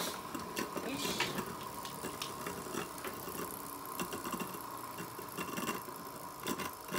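Two Beyblade tops spinning in a plastic stadium: a steady whirring rattle with a faint constant hum. One top is a homemade suction-cup-and-bearing top clamped to the stadium rim.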